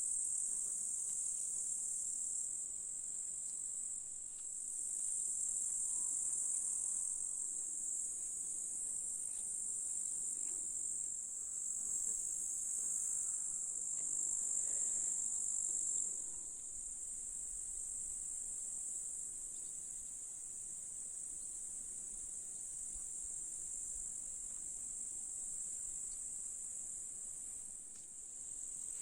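Grasshoppers stridulating: a continuous high-pitched chirring that goes on without a break, a little quieter in the second half.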